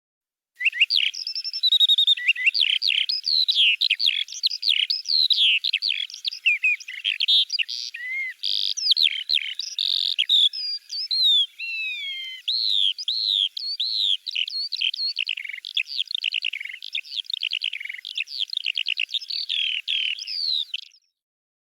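Songbird singing a long, rapid, varied song of chirps, trills and whistled glides that starts and stops abruptly.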